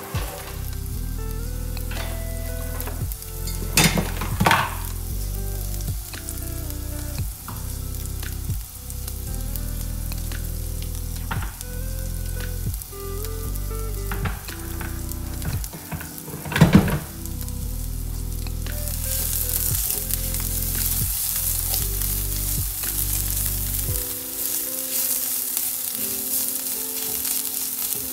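Sliced onions sizzling in hot oil in a frying pan, the sizzle growing louder about two-thirds of the way through, over soft background music that stops near the end. A few sharp knocks stand out: two close together about four seconds in and one more about seventeen seconds in.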